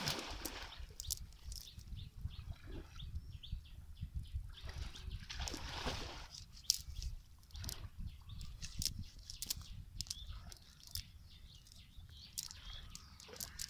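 Wet cast net being handled on mud: scattered clicks and rustles from the mesh and its weighted edge, with a couple of longer rustling swells, over a low steady rumble.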